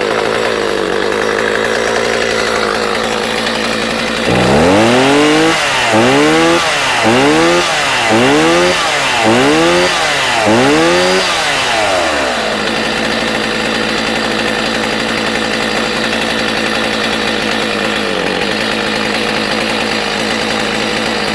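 Stihl 029 two-stroke chainsaw running at a steady idle, then revved up and back down about seven times, roughly once a second, before settling back to idle. It runs smoothly, in good running order with plenty of power.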